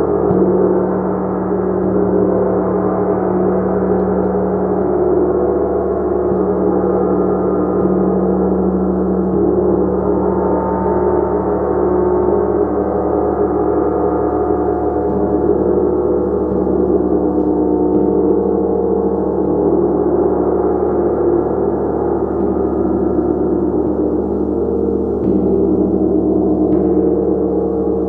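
A gong played continuously: a dense wash of many overlapping ringing tones at an even loudness, with no pauses.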